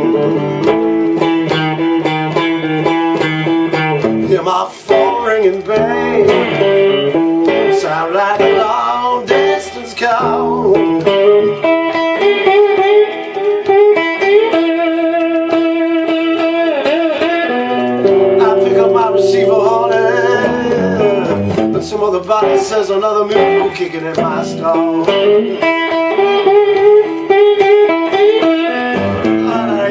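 Solid-body electric guitar played with a slide: an instrumental blues passage of picked notes that glide and bend between pitches.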